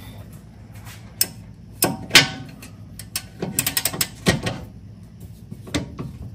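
Metal wrench clicking and knocking as it is fitted and worked on the hard-to-reach inner nut of a rear control arm: scattered sharp clicks, with a quick run of clicks a little past the middle.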